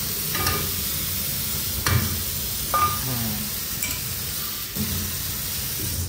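Water running steadily from a kitchen tap, with a few clinks and knocks of a pot, while rice is being prepared.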